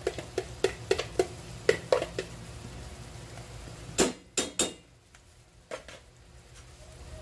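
A metal spoon clicking and tapping against dishes and a stainless steel pan as mayonnaise is spooned in: light clicks about three a second for the first two seconds, then a few sharper knocks about four seconds in.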